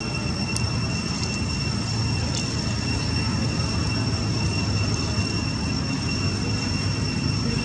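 Steady rumble of road traffic and passing cars, with a constant high thin tone over it.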